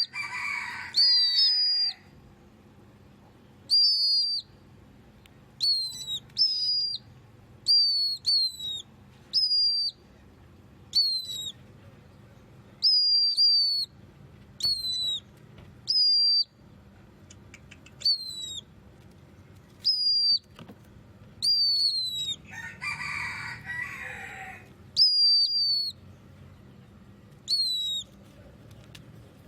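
Caged pet bird calling repeatedly with short, sharp, falling whistled notes, about one every one to two seconds. Twice, at the start and again about three-quarters of the way through, a louder, noisier burst sounds along with the calls.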